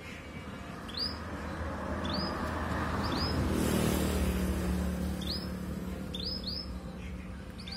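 Domestic canary giving short single chirps, about seven in all, a couple in quick pairs, rather than a full song. Under them a background noise with a low hum swells and fades, loudest about halfway through.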